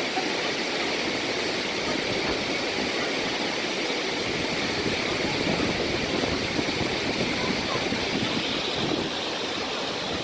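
Waterfall: a steady, even rush of falling water, easing slightly about nine seconds in.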